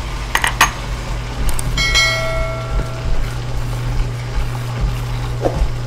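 Two quick mouse clicks followed by a bright bell ding that rings out for about a second: the sound effect of a subscribe-button and notification-bell animation. A steady low hum runs underneath.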